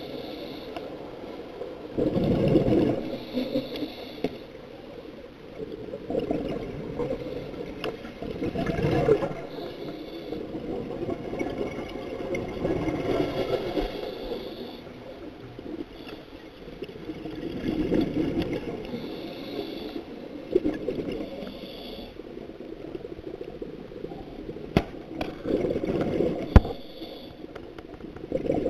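Scuba diver breathing through a regulator underwater: a burst of bubbling exhaust every four seconds or so, with a hiss between bursts. Two sharp clicks near the end.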